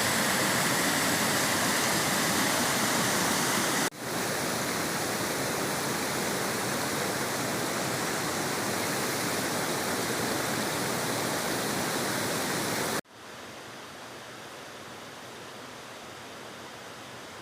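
Waterfall: a steady rush of falling water that drops abruptly in loudness twice, about four seconds in and again about thirteen seconds in.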